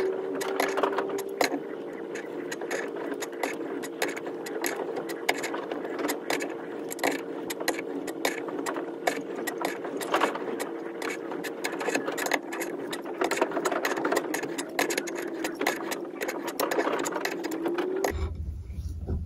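A tap being turned with a crescent wrench through a stripped spark plug hole in a vintage outboard's cylinder head, cutting new threads: irregular metallic clicks and scraping from the tap and wrench, over a steady background hum.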